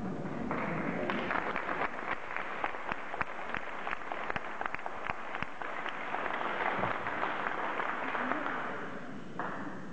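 Audience applauding, a dense patter of claps with individual claps standing out, which stops near the end.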